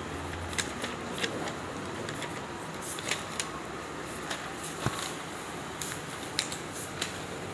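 Sheets of a stack of printed paper being leafed through by hand: scattered crisp rustles and clicks, with one duller thump about halfway through, over a steady background hum.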